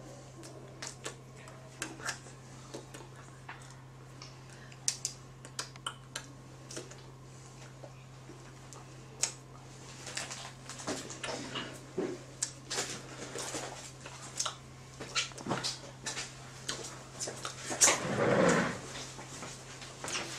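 Soft taps, clicks and rustles from hands and clothing as a person signs, over a steady low electrical hum, with a louder noise lasting about a second near the end.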